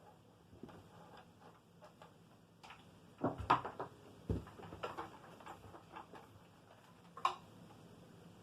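Scattered light clicks and knocks of handling, with a louder cluster a little past three seconds and one more sharp knock near the end.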